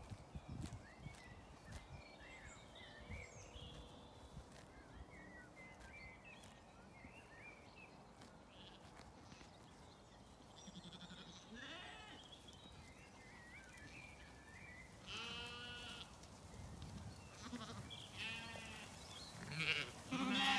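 Zwartbles sheep and lambs bleating a few times in the second half, the last bleat the loudest. Small birds chirp and twitter faintly in the first half.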